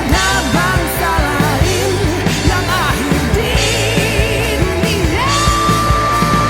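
Rock song with a band playing under a wavering lead vocal; about five seconds in, a single high note starts and is held.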